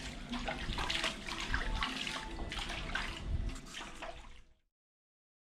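Water splashing and trickling in a foot basin as a spa therapist washes a client's feet by hand, in many small irregular splashes. It cuts off suddenly about four and a half seconds in.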